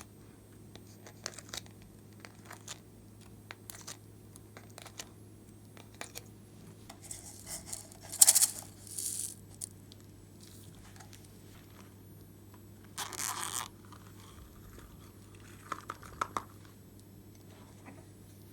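Slime being handled and mixed by hand: scattered small clicks and sticky pops, with a loud crinkly rasp about 8 seconds in, another about 13 seconds in, and a shorter one near the end, over a low steady hum.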